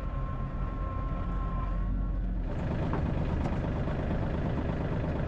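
A motor vehicle's engine running, with a steady whine over a low rumble; about two and a half seconds in the sound abruptly turns into a rougher, louder rushing noise.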